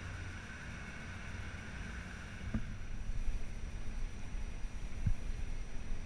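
Wind rumbling on the microphone of a kayak's bow-mounted camera as the kayak moves over calm water. It grows louder about halfway through, with two faint knocks.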